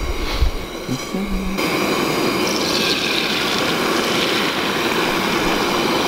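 Butter lightly sizzling in a frying pan on a two-burner camp stove. About one and a half seconds in, a much louder steady sizzle starts suddenly and holds, as the omelet's eggs hit the hot buttered pan.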